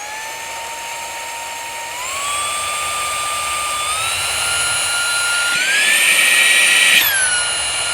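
Brushless motor of a Zarimi cordless handheld car vacuum running with a high whine, stepping up in pitch about two, four and five and a half seconds in as it is switched up through its speeds, then dropping back a step near the end.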